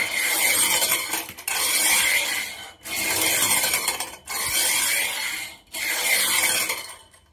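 Titanker metal roller shower curtain ring, its small rollers running on a metal shower rod, pushed back and forth: five even rolling strokes of about a second and a half each with brief pauses between.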